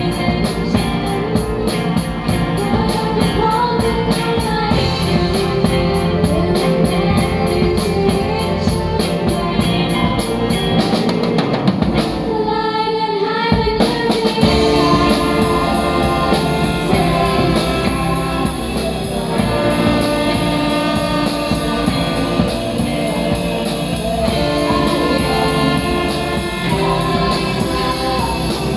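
A live band plays a song with drums, with singing over it. About halfway through, the bass and cymbals drop out for a moment, then the full band comes back in.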